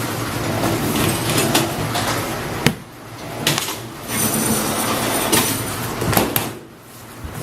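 Semi-automatic PP strapping machine (MPI MP-601H) running, its motor humming steadily with a series of sharp mechanical clacks as it works a strap. The loudest clack comes about halfway through, and the machine noise dies down near the end.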